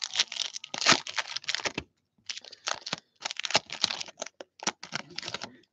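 A foil trading-card pack wrapper being torn open and crinkled by hand, in two spells of crackling with a short pause about two seconds in.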